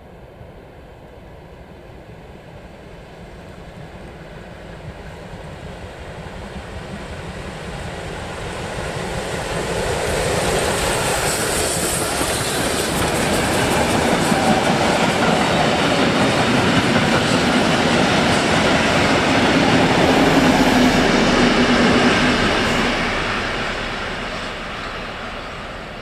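Class 38 steam locomotive (a Prussian P 8) hauling a train of coaches, approaching, running past close by and moving away. The sound swells steadily, is loudest through the middle, and fades near the end.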